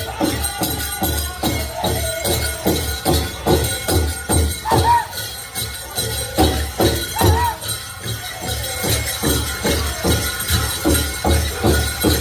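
Powwow drum group singing a duck-and-dive song: a big drum struck in a steady beat of about three strokes a second, under high-pitched singing voices.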